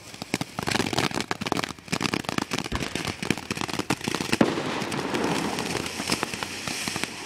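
Small consumer ground firework going off: a rapid, irregular string of crackling pops, with a steady hissing spray carrying on from about halfway through.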